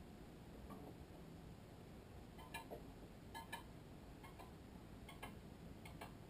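Faint, irregular ticks of a badminton cross string being woven by hand over and under the racket's main strings, starting about two and a half seconds in, against near-quiet room tone.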